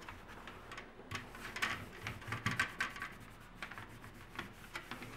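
A sponge scrubbing back and forth over an embossed pressed-tin panel, wiping off barbecue grease: a run of quick rubbing strokes, busiest from about one to three seconds in and sparser after.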